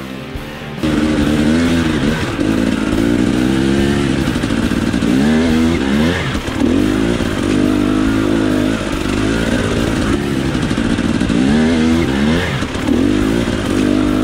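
KTM XC-W enduro dirt bike engine revving up and down over and over as it is ridden over rough ground, its pitch rising and falling every second or so.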